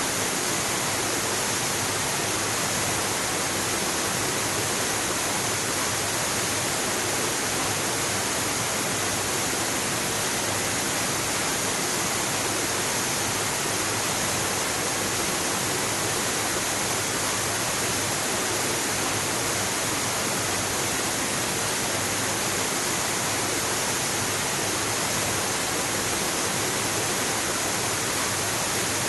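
Waterfall: a steady, unbroken rush of falling water, an even hiss that holds the same level throughout.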